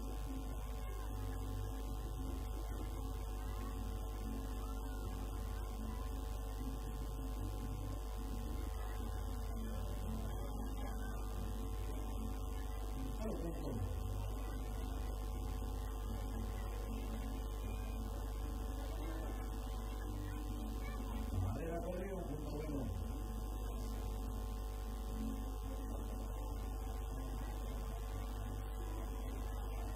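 Steady electrical mains hum, a low buzz at an even pitch. Faint brief sliding sounds come through once about thirteen seconds in and again around twenty-two seconds.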